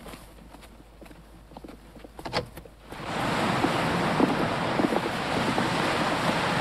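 A few faint clicks and knocks, then about three seconds in a steady rush of sea surf breaking on a stony shore starts abruptly, with small knocks through it.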